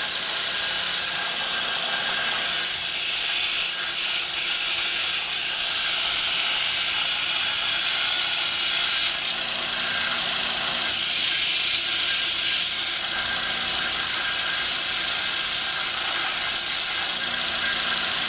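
Bench-grinder-driven belt sander (Multi-Tool belt attachment) running with a steel tool pressed against the belt, grinding the galvanized zinc coating off so the tool can be welded. A steady grinding hiss over a low motor hum, changing a little as the metal is pressed on and eased off the belt.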